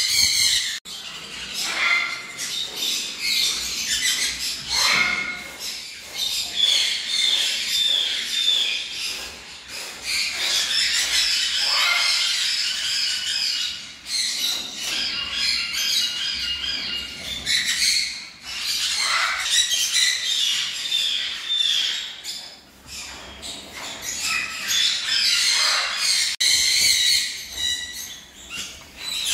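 Many caged sun conures calling at once: a dense chorus of high chirps, with louder squawks that slide down in pitch every few seconds.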